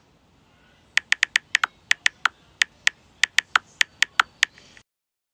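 Phone's on-screen keyboard making its key-click sound with each tap while a message is typed: a quick, irregular run of about twenty sharp clicks starting about a second in. The sound cuts off abruptly near the end.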